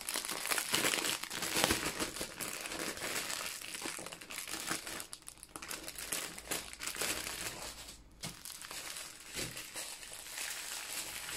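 Plastic packaging crinkling and crackling irregularly as a wrapped strip of small bags of diamond-painting drills is handled and turned over in the hands, with a brief lull about eight seconds in.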